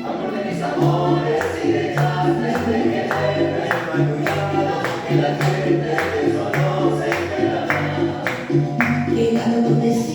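A song playing, with singing over a steady rhythmic beat.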